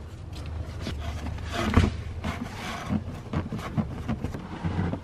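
Rear seat side bolster being pushed and fitted into place against the carpeted trunk trim: rustling and rubbing of upholstery and carpet with several small plastic clicks and knocks, the loudest a little under two seconds in.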